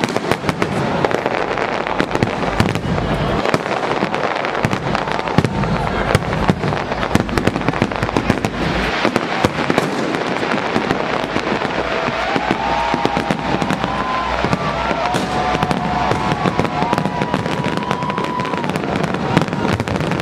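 Fireworks going off all at once: a dense, unbroken crackle of bangs and pops from many fireworks and firecrackers.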